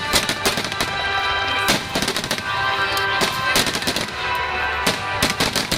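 Fireworks bursting overhead in quick salvos of sharp bangs and crackles, coming in several clusters, over music with steady held tones.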